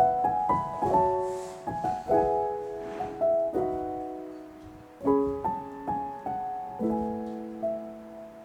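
Soft background piano music, with gently struck notes and chords that ring and fade.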